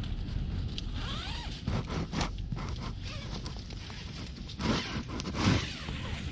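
Zipper on the door and mesh screen of an Outdoor Research Alpine AscentShell bivy sack being pulled in several short strokes.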